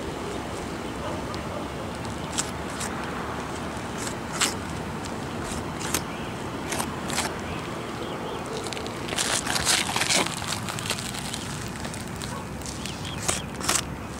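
Scattered scuffs and scrapes on an older 3-tab asphalt shingle roof, with a denser run of them about nine to ten seconds in, over a steady background hiss.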